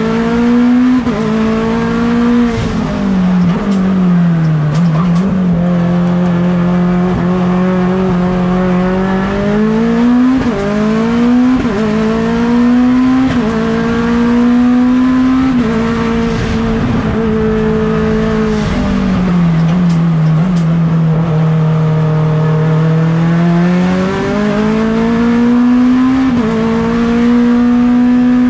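Mitsubishi Lancer Evolution X's turbocharged 4B11 four-cylinder engine under hard racing use, heard onboard. It revs up and drops sharply at quick upshifts several times, and eases off into lower, steadier running twice, around five and twenty seconds in.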